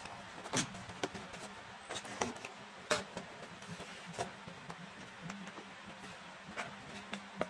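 Hands handling a cardboard parcel wrapped in plastic packing tape: scattered short taps, scrapes and crinkles of cardboard and tape, about eight separate sounds with quiet between.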